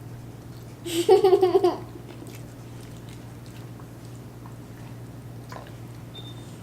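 A child's brief wavering vocal sound about a second in, then faint chewing and small mouth clicks over a steady low hum.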